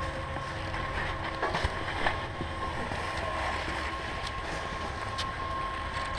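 Surface ski lift running: a steady mechanical rumble with a faint, even high whine, a few light knocks, and some wind on the microphone.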